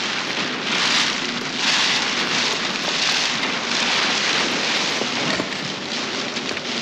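Large black plastic sheeting rustling and crackling as it is pulled down off a boat's hull, coming in several surges of noise.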